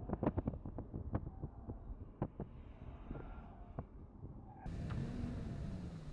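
Pickup truck driving through a handling test: a low rumble with a run of sharp knocks and clicks. About two-thirds of the way in, the sound changes abruptly to fuller engine and road noise with a tone that dips in pitch.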